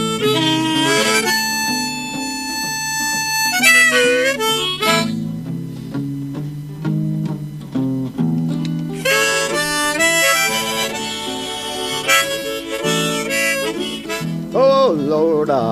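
Harmonica playing over guitar chords in a live song's instrumental break, long held notes with some bent and wavering. The harmonica pauses for a few seconds in the middle while the guitar carries on.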